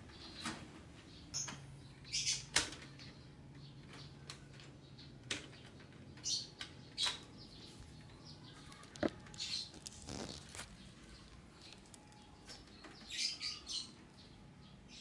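Scattered short high chirps and squeaks, with a few sharp knocks and a rattle from a baby monkey moving about its wire-mesh cage.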